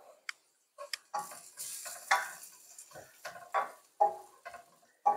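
A spoon stirring and scraping chopped onions frying in desi ghee in a metal pot, in irregular strokes over a steady sizzle. The onions are being browned for the tempering (baghar) of a lentil dish.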